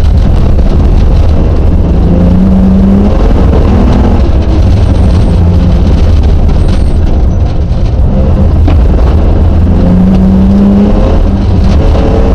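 Rally car engine under hard acceleration, heard loud from inside the cabin over a dense rumble; the engine note rises and holds twice, about two seconds in and again near ten seconds.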